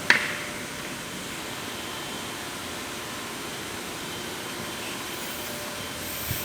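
Steady, even background hiss, like a fan or air conditioner running. There is a sharp click just after the start and a soft knock near the end.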